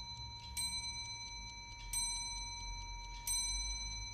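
Old mantel clock striking the hour: three slow, ringing strikes about 1.3 seconds apart, each one still sounding when the next comes.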